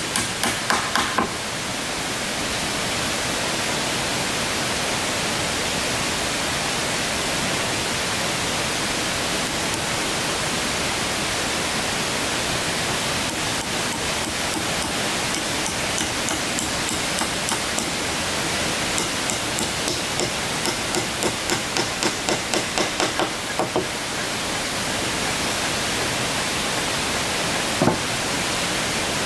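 Hammer tapping in quick runs of light blows, about four a second, as wood is worked on the cabin stairs, over a steady hiss; one sharper knock near the end.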